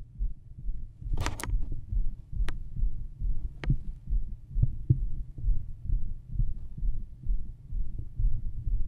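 Human heartbeat heard through a stethoscope on the chest: regular, low beats. A brief rustle about a second in, and a couple of sharp clicks a little later.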